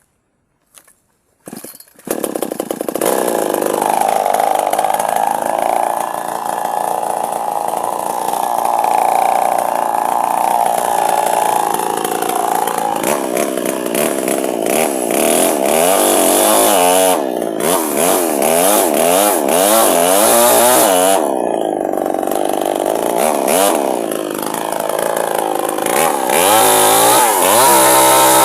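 Chainsaw coming in loud about two seconds in and running under load, its engine pitch rising and falling as it rips lengthwise through wood.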